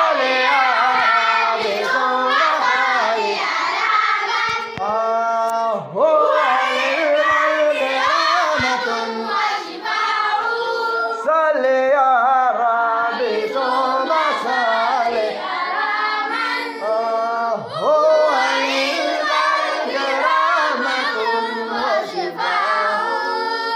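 A group of voices, a munshid with his students, chanting an Arabic devotional nasheed in praise of the Prophet in long drawn-out phrases with no instruments. The singing stops at the very end.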